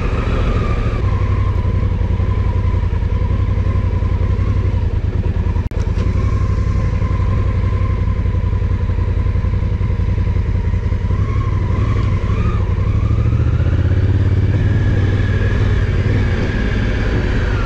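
Honda CRF1000L Africa Twin's parallel-twin engine running under way. Its pitch rises as the bike accelerates about two-thirds of the way through, and the sound breaks off for a moment about six seconds in.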